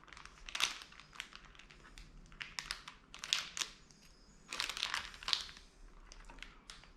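Plastic packaging crinkling as it is handled, in irregular bursts of crackles.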